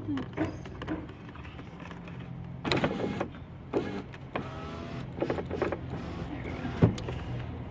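Clicks and knocks of plastic door-panel trim being pressed and snapped into place, the sharpest knock about seven seconds in, with some brief creaking of plastic, over a steady low hum.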